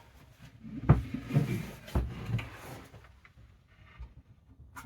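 Handling sounds of a switched-off bench sander being moved about on a workbench: two solid knocks about a second apart, with shuffling in between and a small click near the end.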